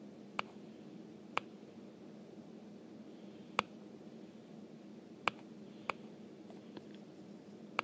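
Stylus tapping on the touchscreen of a Compaq iPaq H3760 PDA: about seven short, sharp taps at irregular intervals, with a faint steady hum underneath.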